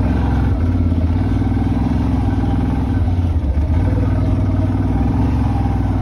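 Polaris quad bike's engine running at a steady, even pitch while under way.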